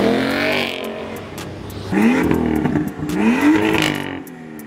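Performance car engines revving as the cars drive off. A Ford Mustang's revs fall away over the first second, then two quick rev blips rise and fall about a second apart.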